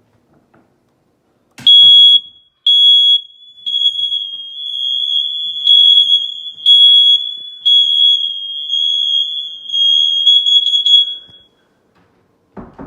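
Smoke alarm sounding during a push-button test: a loud, high-pitched beep that starts as separate beeps about a second apart, then runs into longer pulsing tones for roughly ten seconds before stopping. A single knock near the end.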